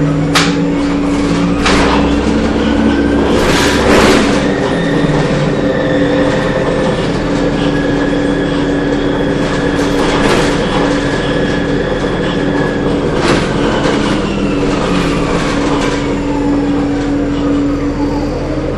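Cabin of a 2007 Orion VII diesel-electric hybrid bus under way: a steady drone from the drive, with a whine that rises in pitch over the first few seconds and falls again near the end. Sharp knocks and rattles from the body every few seconds, the loudest about four seconds in.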